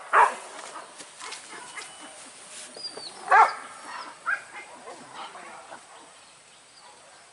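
Hunting dogs barking during a wild boar hunt: a bark right at the start, a louder one about three and a half seconds in, then a few fainter barks that die away.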